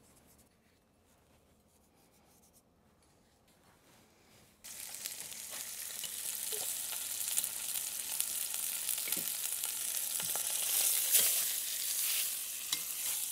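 Near silence, then about four and a half seconds in a steady sizzle starts suddenly: a floured beef roast searing in hot lard in an enameled Dutch oven, browning on the outside. A few light clicks of metal tongs against the meat and pot sound over it.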